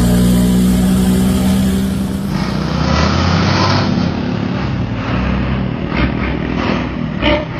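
Bus engine with a raspy 'cempreng' aftermarket exhaust, running with a steady droning note. About two seconds in the sound changes abruptly to a rougher, noisier engine rumble.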